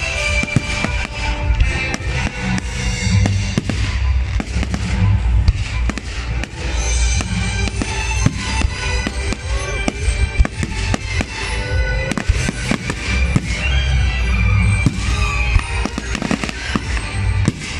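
Aerial fireworks display, with shells bursting in a dense run of sharp bangs at irregular, rapid intervals.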